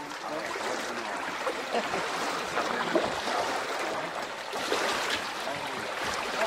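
Choppy lake water lapping around a wooden pier: a steady, even noise of moving water.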